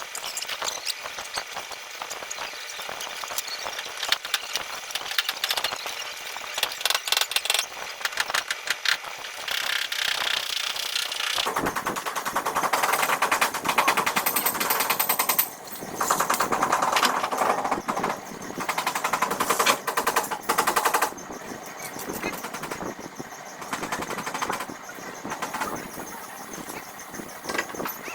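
Rapid, repeated tapping on a car body panel during paintless dent repair, in long runs that get louder for a stretch in the middle.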